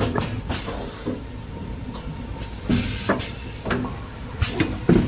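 Kitchen towel paper production line machinery running: a steady low rumble broken by irregular short hisses and knocks, about seven in five seconds, the loudest near the end.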